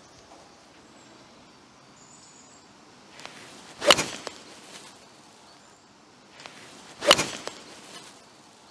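Full 7-iron swings striking a golf ball twice, about three seconds apart: each a short swish ending in a sharp crack as the clubface meets the ball.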